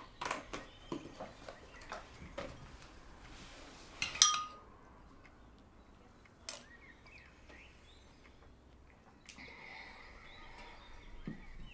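Breakfast-table sounds: milk poured from a carton into a cereal bowl, then a metal spoon strikes the ceramic bowl with a sharp ringing clink about four seconds in, the loudest sound. Quieter spoon-and-bowl clicks follow, and faint bird chirps come in near the end.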